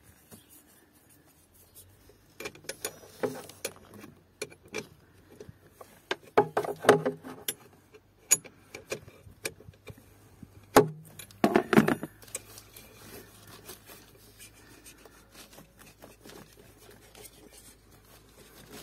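A metal wrench clicks, taps and scrapes against a stiff battery-clamp fastener as it is worked loose. There are two louder bursts of rattling a few seconds apart and a single sharp click between them.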